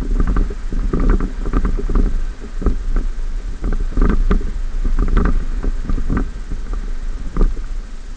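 Ford F-150 pickup driving over a rutted sand track, heard from a hood-mounted camera: a steady low wind-and-road rumble on the microphone with irregular knocks and rattles as the truck jolts over the ruts.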